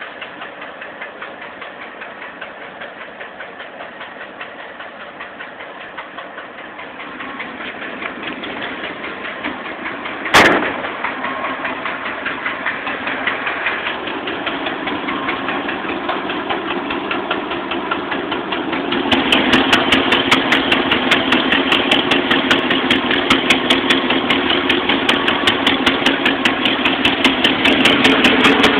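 Engine running with a rhythmic pop-pop-pop, with one loud sharp pop about ten seconds in. After about nineteen seconds it runs louder and the pops come sharper and faster. The popping is a new noise that the owner finds odd.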